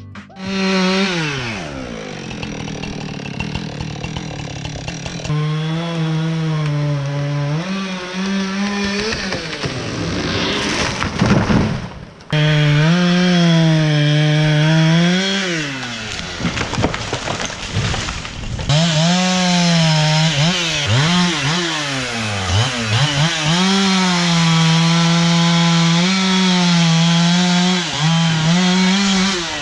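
John Deere 753G harvester working with a Logmax 7000 processor head, sawing and feeding stems. Its machine note rises and falls again and again under load and gets abruptly louder about twelve seconds in.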